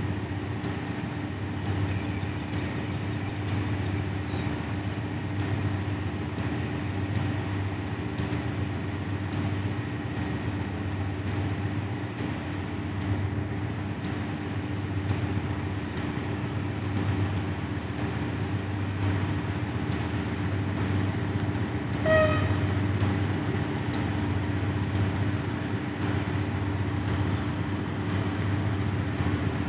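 Steady low rumble of a distant diesel-electric train locomotive approaching, with one short horn toot about three-quarters of the way through.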